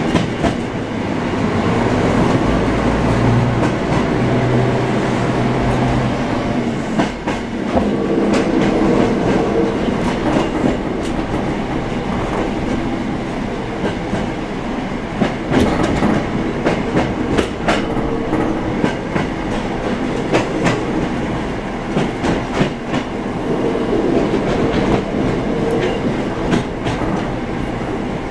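Diesel railcar running along the line, heard from inside the car with its windows open: engine drone under a steady rush of wind, with the wheels clicking over rail joints and points, most often in the second half.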